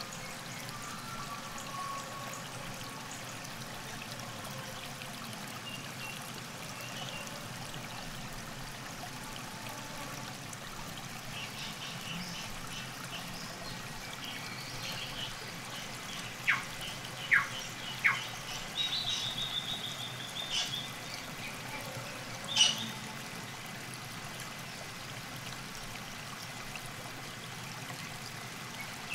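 Riverside ambience: river water trickling steadily, with songbirds chirping. A little over halfway through come three sharp calls in quick succession, then a short trill and one louder sharp chirp.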